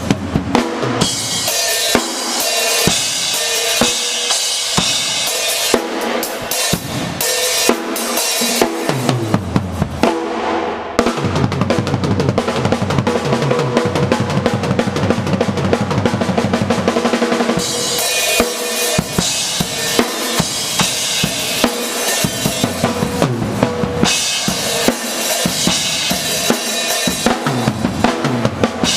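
A drum kit played hard and fast: bass drum, snare and cymbals. About eleven seconds in comes a stretch of very rapid, unbroken strokes lasting some six seconds, then the groove returns.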